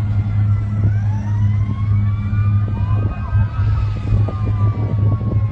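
Several emergency-vehicle sirens wailing at once, their pitches gliding up and down and crossing each other, over a steady low drone.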